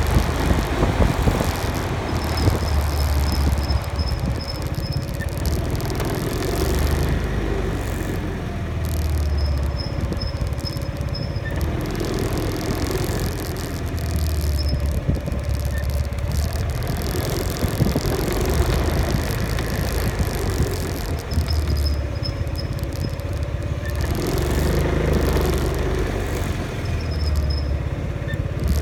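SYM Maxsym 400 scooter's front brake pads chirping while it rides, short high squeaks at about three a second in runs of a few seconds that come and go. The chirp is an abnormal brake-pad noise, heard over the scooter's running and road noise.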